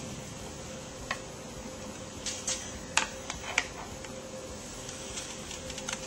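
Light clicks and knocks of hard plastic Tupperware containers being handled while the whipped egg mixture is poured into the breakfast maker, over a steady faint hum. The clicks come as scattered single taps, most of them between about one and four seconds in.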